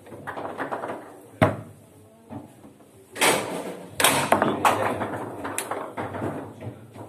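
Foosball table in play: sharp knocks of the ball being struck by the figures and rods clattering against the table, one hard hit about a second and a half in, then a busy run of clattering from about three seconds that lasts until about six.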